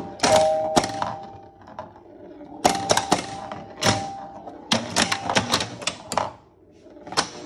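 1976 Chicago Coin Sound Stage pinball machine in play: clusters of rapid sharp clacks from the flippers, bumpers and relays, with steady two-note ringing tones under the first few clusters.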